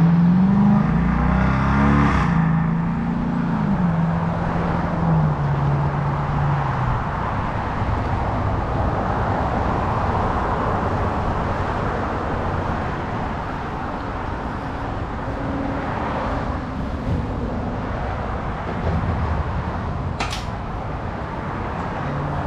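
A vehicle engine whose pitch falls over the first few seconds, then steady traffic-like background noise, with one sharp click about twenty seconds in.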